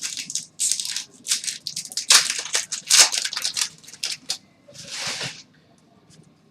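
Plastic or foil wrapper of a trading-card pack being torn open and crumpled: a quick, irregular run of crinkling and tearing rustles that stops about a second before the end.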